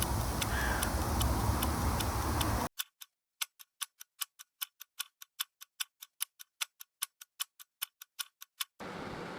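A clock-ticking sound effect of fast, evenly spaced ticks, about five a second, over an otherwise silent track. It starts about three seconds in and stops shortly before the end. It is preceded and followed by a steady rumbling background noise.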